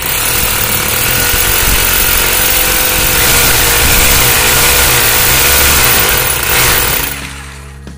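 Corded hammer drill running under load, its masonry bit boring into a brick wall with a steady grinding rattle. It stops about seven seconds in.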